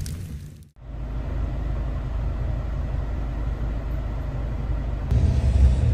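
Steady low rumble of a car driving, heard from inside the cabin. It starts after a brief silence under a second in and grows louder about five seconds in.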